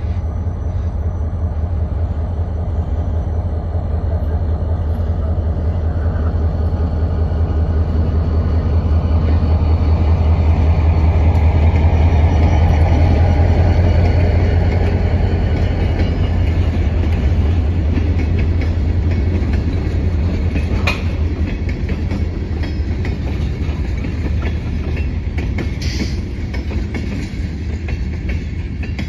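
Diesel freight train passing close by. The locomotive's deep engine rumble swells to its loudest about halfway through, then the freight cars roll past with wheel clatter and the sound slowly fades. There are two brief sharp sounds in the last third.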